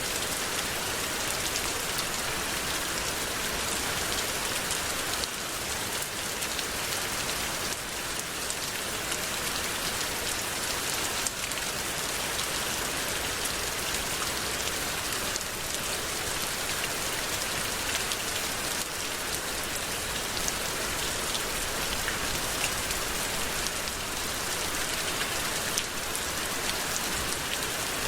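Heavy rain falling steadily on a surface, an even, dense hiss with scattered individual drops.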